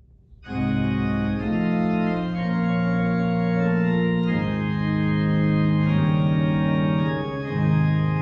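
Organ playing slow, held chords, coming in about half a second in and moving to a new chord every two to three seconds.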